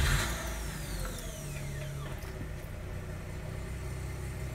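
Mazda RX-8's 13B Renesis rotary engine running at idle just after starting. A high whine falls away over the first two seconds, then the engine settles into a steady idle. It is running even though the fuel pump fuse was pulled so that it would only crank.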